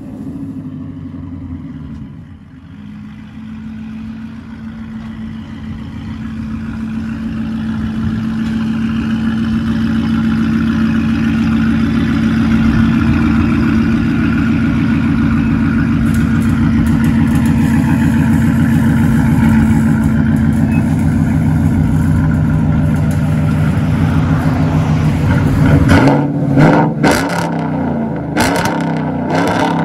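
Chevrolet Silverado's 6.2-litre V8 running through long-tube headers, high-flow cats and a Borla ATAK cat-back exhaust, heard at the dual tailpipes. It grows louder over the first ten seconds, then holds a steady deep note. A few brief sharp noises come near the end.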